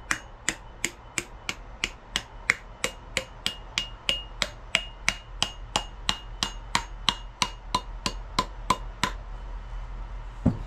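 Hammer driving a wooden wedge into the eye of an axe head to fix it on its handle, about three blows a second. As the wedge seats tight the blows take on a clearer ring from the steel head, and they stop about nine seconds in. One heavier knock comes near the end.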